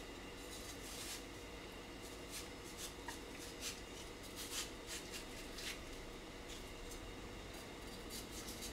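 Knife cutting through watermelon flesh and rind, a faint series of short, crisp cuts spaced irregularly over a low steady background hum.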